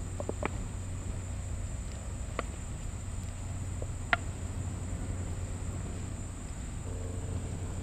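A steady high-pitched insect drone over a low rumble of a handheld camera being carried. A few light clicks and taps are heard, the sharpest about four seconds in.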